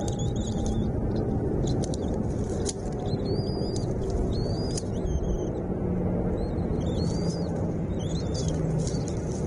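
Small birds chirping: short high calls that rise and fall, repeated roughly once a second, over a steady low rumble.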